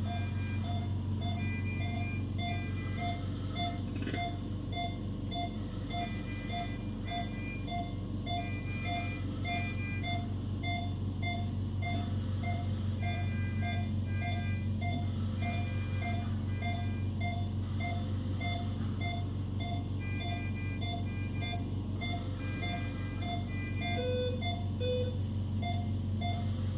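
Hospital bedside patient monitor beeping: an even low beep about one and a half times a second, with groups of higher alarm beeps repeating over it, above a steady low hum of equipment.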